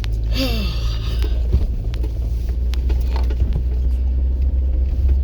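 Jeep Wrangler JL's engine running at low revs with a steady low rumble as it climbs an off-road trail. A brief sound falling in pitch comes about half a second in.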